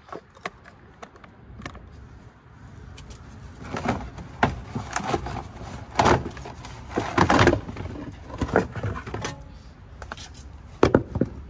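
Plastic fender liner of a Volkswagen Golf Mk7 being wrestled out of the front wheel well: a run of scraping, rustling and knocking as it flexes and comes free, after a few light clicks at the start, with a sharp knock near the end.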